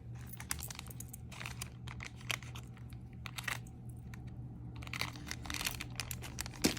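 Costume jewelry and its wrappings being handled on a desk: scattered light clicks and short crinkling rustles, over a low steady hum.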